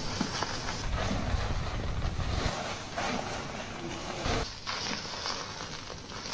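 Fingers scratching and rubbing through hair on a person's scalp during a head-spa wash, an uneven scratchy rustle.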